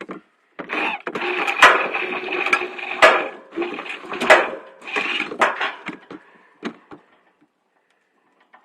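Electric winch motor running in three short runs with a steady whine, with sharp clicks along the way, while lowering an antenna mast.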